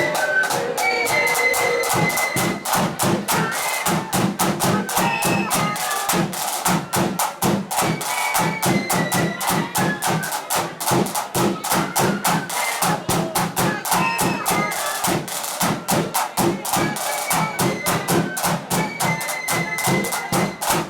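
Blood-and-thunder flute band playing: high flutes carry the melody over rapid, dense snare drumming and a heavy, steady bass drum beat.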